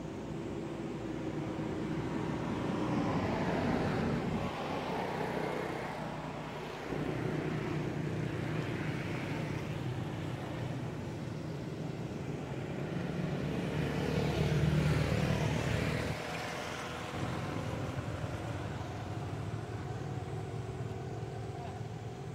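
Motor vehicles passing on a road: engine and tyre noise swells and fades twice, peaking about three seconds in and again around fifteen seconds, over a steady traffic hum.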